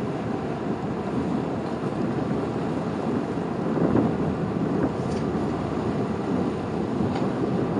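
Low steady rumble of the ferry Asakaze Maru's engines, mixed with wind buffeting the microphone.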